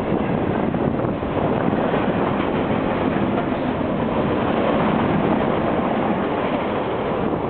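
Long freight train rolling past, its steel wheels on the rails making a steady noise.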